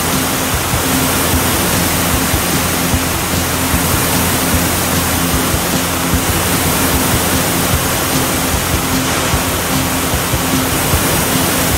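Fire hose nozzle spraying a high-pressure jet of water: a loud, steady rushing hiss, with a low steady hum underneath.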